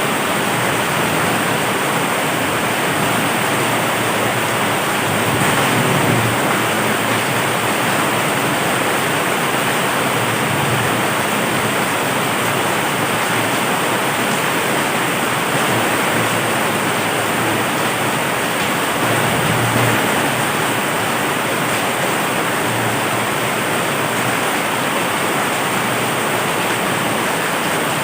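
Heavy rain pouring steadily: a loud, dense, even hiss with no let-up.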